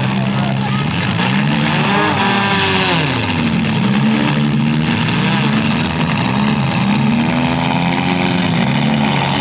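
Several compact-car engines revving up and down, their pitch rising and falling in repeated overlapping swells, as street stock compact derby cars accelerate and reverse. The engine noise is loud and continuous.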